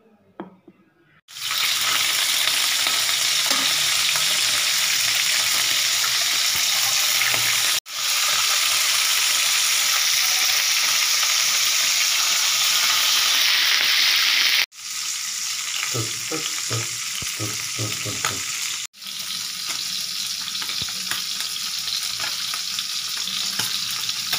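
Galunggong (round scad) frying in hot oil in a pan: a loud, steady sizzle that starts abruptly about a second in and drops out briefly three times.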